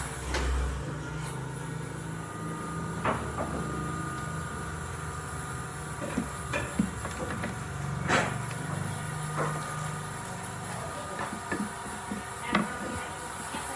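Wooden pieces being handled in a workshop: a few scattered knocks and taps, the loudest about eight seconds in, over a steady low hum.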